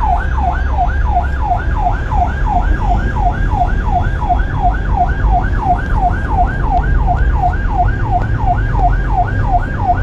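Ambulance's electronic siren on a fast yelp, sweeping up and down about three and a half times a second, over a steady low rumble of vehicle noise.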